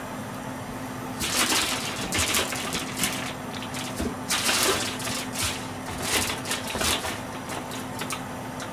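Rummaging through kitchen items in search of granulated dashi stock: irregular short runs of rustling and clattering. A steady low hum runs underneath.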